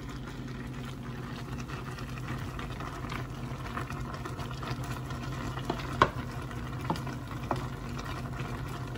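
A pot of corkscrew pasta and broccoli boiling, stirred with a wooden spoon that knocks lightly against the pot a few times about six to seven seconds in. A steady low hum runs underneath.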